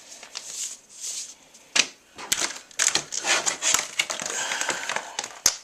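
Packaging being handled and pulled apart by hand: rustling and crinkling with sharp clicks and crackles, sparse at first and busier from about two seconds in.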